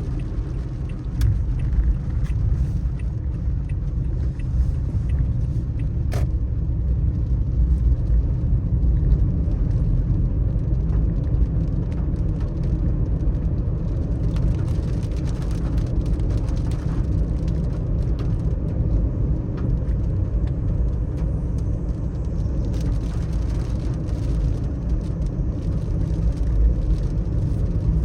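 Car driving on a wet road in the rain: a steady low rumble of tyres and engine with a fainter hiss and scattered light ticks, and one sharp click about six seconds in.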